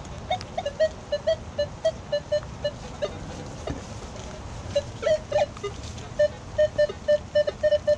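Nokta Makro metal detector giving short low beeps, two to four a second with a break in the middle, as it is swept along a hedge; the detectorist takes the chatter for a metal fence nearby.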